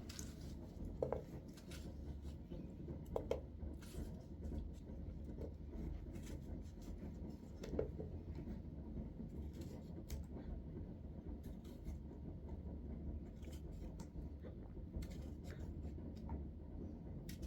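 Scattered small clicks and scrapes of things being handled, over a steady low rumble.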